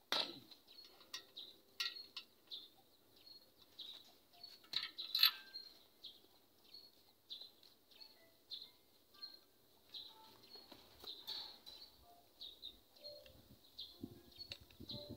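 Faint, repeated high chirping of small birds, with a few sharp clicks in between, the loudest about five seconds in.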